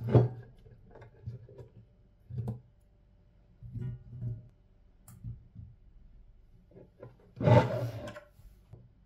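Raw potato pieces handled on a wooden cutting board and dropped into a stainless steel pot, a series of dull knocks and rubs. A louder, longer clatter about seven and a half seconds in as the board is lifted.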